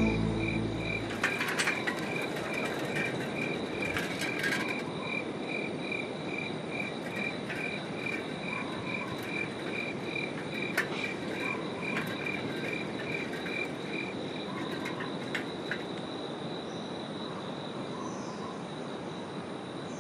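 Night chorus of crickets and frogs: a cricket chirping at an even rhythm, several chirps a second, over a steady insect trill and a low noisy bed, with a few faint clicks.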